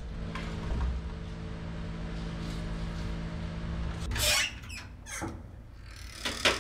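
A door is pushed open with a short scraping squeak about four seconds in, over a steady low hum. A couple of sharp clicks follow near the end.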